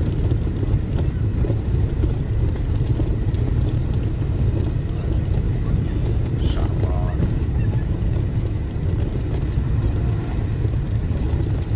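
Steady in-cabin road and engine rumble of a Maruti Gypsy cruising on a highway.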